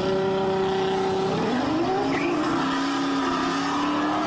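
Car engine accelerating. Its pitch rises and holds, drops at a gear change about a second and a half in, then climbs again and settles to a steady drone.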